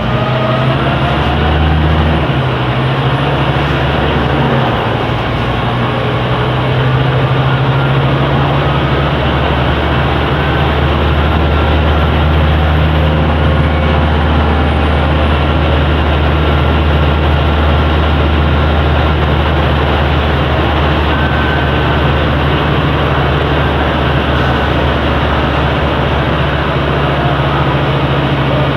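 Scania K270 bus's five-cylinder diesel engine running, its note shifting in pitch over the first few seconds and then holding steady.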